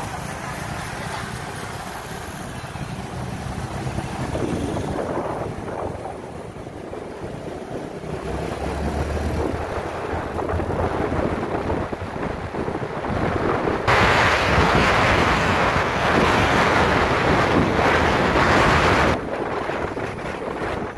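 Wind rushing over the microphone of a moving motorbike, with the bike's engine and road noise running low beneath. About two-thirds through, the wind rush grows much louder for several seconds, then drops suddenly near the end.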